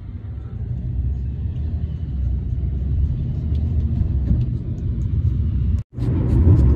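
Steady low rumble of a car in motion, heard from inside the cabin. It drops out for an instant near the end and comes back a little louder.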